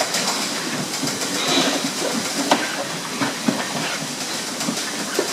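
Fattening pigs rooting and feeding at a trough-mounted straw-pellet dispenser: a steady noisy background full of irregular clicks and knocks.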